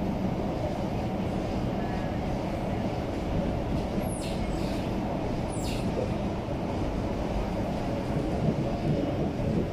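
Cabin noise of an SMRT C751B metro train running between stations: a steady low rumble, with two brief high-pitched sounds falling in pitch about four and five and a half seconds in.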